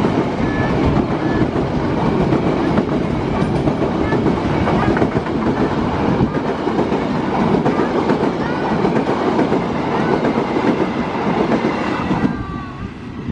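Passenger train cars rolling past close by, wheels clattering over the rail joints; the noise drops away sharply near the end as the last car clears.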